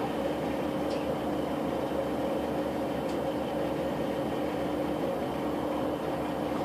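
Class 156 diesel multiple unit standing with its underfloor Cummins diesel engine idling, a steady hum heard from inside the carriage.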